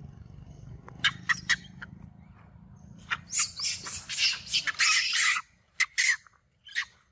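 Long-tailed macaques screaming: three short shrill shrieks about a second in, a long run of high screams from about three seconds to five and a half, then a few short squeals. The distress screams of a young monkey being pinned down by an adult.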